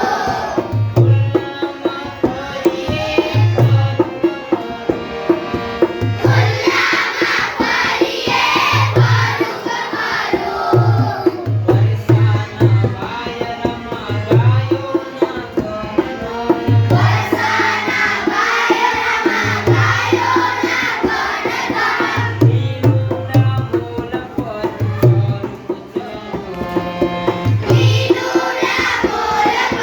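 Children's song: a tabla rhythm with deep bass strokes recurring every second or so, under a sung melody that swells and fades in stretches.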